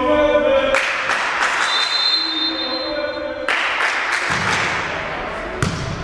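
Voices shouting and echoing in a gymnasium, with a short steady referee's whistle about two seconds in. Near the end comes a single sharp thump of a volleyball being struck.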